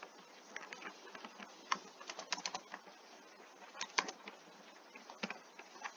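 Computer keyboard typing: faint, scattered keystrokes at an uneven pace, with a few short clusters of quick taps.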